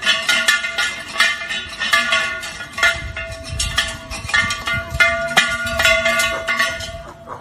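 Background music with a quick percussive beat over sustained notes.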